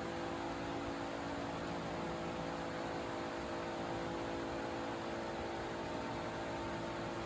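Electric pedestal fan running: a steady whir with a hum of several held tones underneath.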